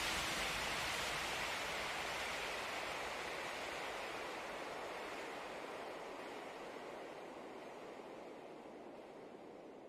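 Steady rushing noise with no distinct events, fading out slowly and evenly.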